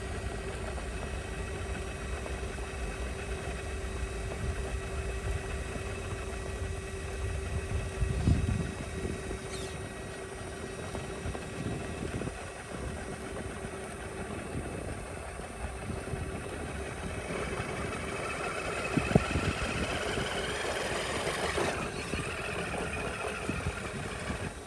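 Electric motor and gear drive of a radio-controlled rock crawler whining as it works over rock, with a couple of sharp knocks, one about eight seconds in and another near the three-quarter mark. The whine grows busier in the last third.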